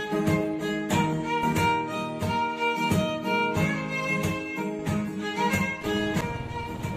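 Background music: a bowed-string melody over a steady beat.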